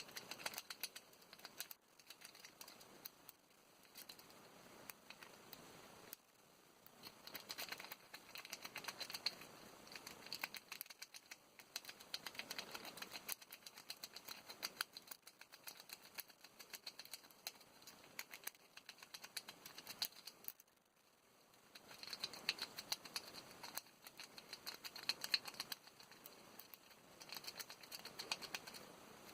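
Lock pick and tension wrench working the pins inside a Master Lock 570 padlock: faint, fast flurries of small metallic clicks and scrapes, broken by short pauses.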